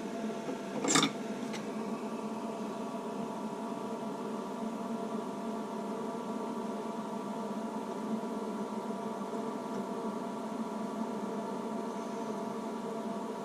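A steady hum made of several pitches, with a short hiss about a second in and a faint click just after.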